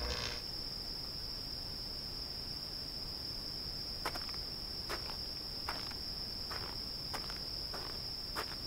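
Crickets trilling in one steady, high-pitched, unbroken note, with a few faint scattered clicks.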